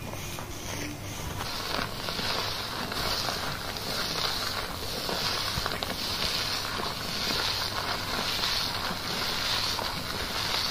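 Hands scrubbing a thickly lathered head of hair, making the wet squishing of shampoo foam on the scalp. The sound swells in rhythmic strokes about once a second.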